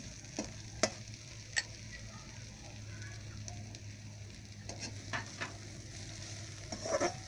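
Sliced onions and shallots sizzling in hot coconut oil in a heavy-bottomed wok at the start of sautéing, with a metal spoon stirring and clicking against the pan about seven times.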